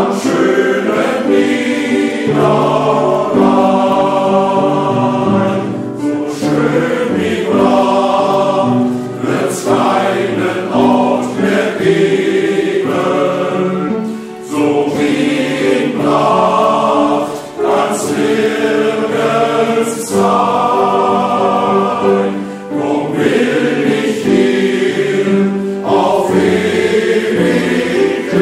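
A choir singing a German song in chorus over instrumental accompaniment, in held chords with short breaks between phrases.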